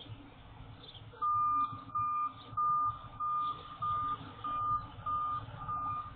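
A vehicle's reversing alarm beeping: eight evenly spaced beeps of one steady pitch, about one and a half a second, starting about a second in, over a low steady background rumble.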